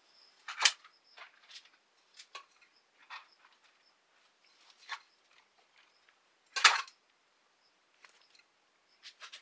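Cooked rice being spooned out and weighed for meal-prep portions: scattered scrapes, clicks and knocks of a spoon and container, with two louder knocks about half a second in and a little past the middle.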